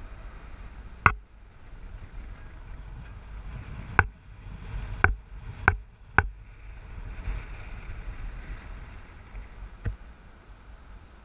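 A car driving slowly: a steady low rumble of engine and tyres, broken by six sharp knocks at uneven intervals.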